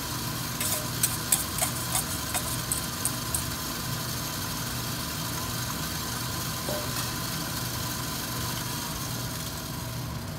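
Wire whisk striking and scraping a stainless steel mixing bowl while whisking egg yolks into thick melted chocolate: a quick run of sharp clicks in the first three seconds or so, then quieter stirring. A steady low mechanical hum runs underneath.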